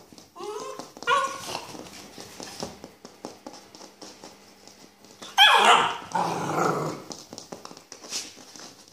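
A 9-week-old Rottweiler puppy barking: a few short calls around a second in, then the loudest bark, falling in pitch, about five and a half seconds in.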